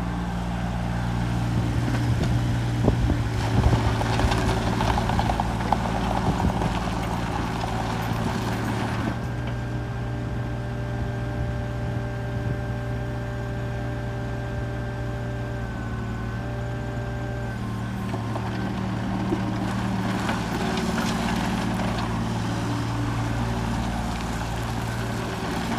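Hitachi excavator's diesel engine running steadily, with clanks and knocks in the first several seconds and a steady high whine for several seconds in the middle.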